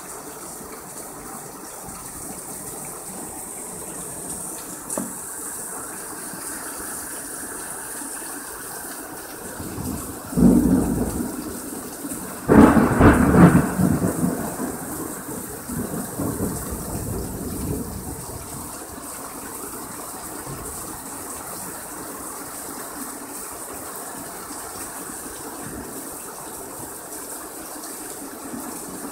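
Heavy rain falling steadily. About ten seconds in, a roll of thunder builds. About two seconds later a loud, sudden clap of thunder breaks and then rumbles away over the next several seconds.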